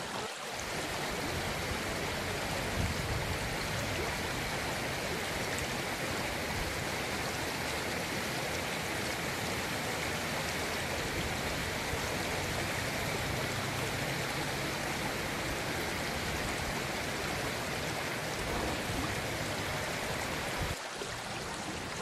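Steady rushing of flowing water from the river and waterfall running over rocks.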